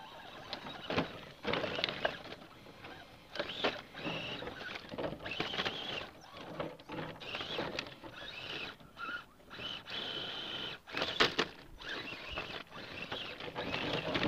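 Axial SCX10 radio-control rock crawler's electric motor and drivetrain whining in starts and stops as it climbs over boulders, with its tyres and chassis clicking and knocking on the rock. The sharpest knocks come about 11 seconds in.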